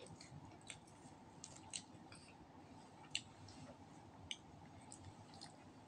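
Faint eating sounds of roast duck and rice eaten by hand: soft chewing with a few sharp clicks and smacks, the loudest about three seconds in.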